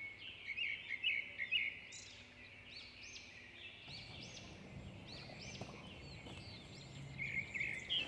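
Wild songbirds calling outdoors: quick, repeated rising-and-falling chirps, busiest at the start and again near the end. A faint low rumble comes in about four seconds in.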